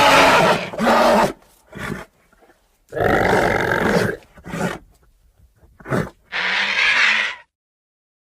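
Custom-made Pachycephalosaurus creature sound effect: a string of rough roars and short grunts separated by silent gaps, the longest lasting about a second, the last one cutting off sharply.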